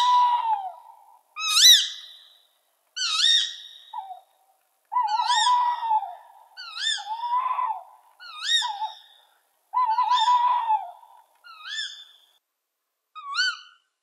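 Tawny owl calling: a series of about ten short calls, roughly one every second and a half, fading somewhat toward the end.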